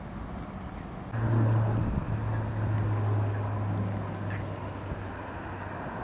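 A low, steady engine hum that starts suddenly about a second in and fades after a few seconds, over outdoor background noise.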